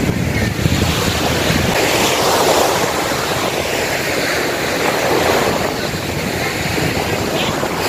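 Small sea waves breaking and washing up on a sandy beach, with wind buffeting the microphone.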